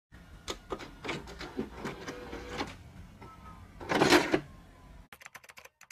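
Scattered clatter and rustling, with one louder rustle about four seconds in. Near the end comes quick typing on a laptop keyboard, a run of sharp separate key clicks.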